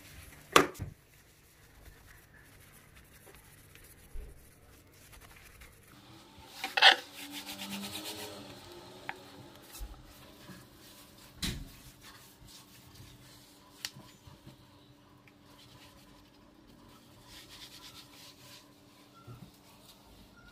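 Rubbing and wiping on kitchen cabinet fronts, with a few sharp knocks, the loudest about seven seconds in.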